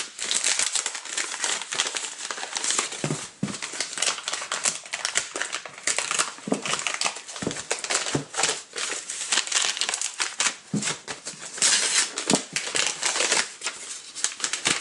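A First Class Mail envelope being torn open and handled, then a cardboard mailer drawn out of it: continuous crinkling and rustling with many sharp crackles, loudest about twelve seconds in.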